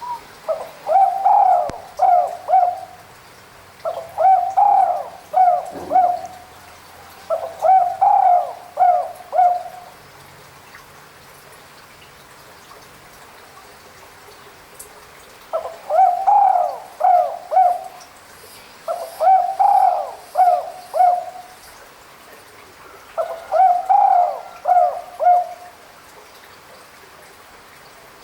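Spotted dove (tekukur) cooing: six phrases of a few cooing notes each, about two seconds apart, in two bursts of three separated by a pause of about six seconds.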